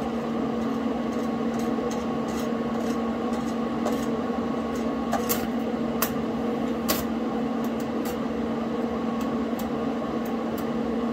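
Welding on steel boat-trailer skid brackets: a steady electrical hum from the welder with the irregular crackle and sharp pops of the arc, several louder pops a little past the middle.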